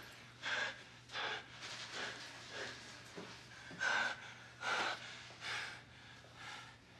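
A person breathing hard in a series of ragged gasps, about nine breaths at irregular intervals, over a faint steady low hum.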